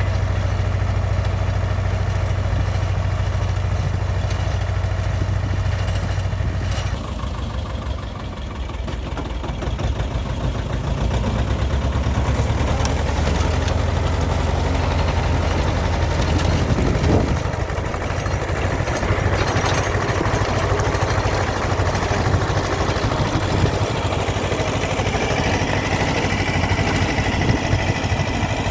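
T-25 tractor's two-cylinder air-cooled diesel engine running steadily. Its note dips about seven seconds in and comes back up a few seconds later.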